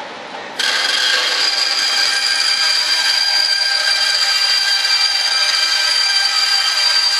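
Power saw switched on about half a second in and running steadily with a high whine, cutting a sheet that was first scored with a knife.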